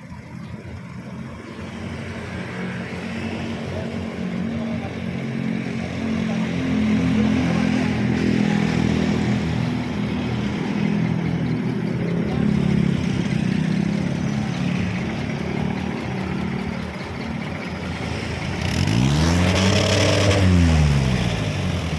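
Vehicle diesel engine running at a steady, slightly uneven speed during a smoke-belching emissions check, then revved up hard once and let fall back near the end, with a burst of exhaust hiss at the peak.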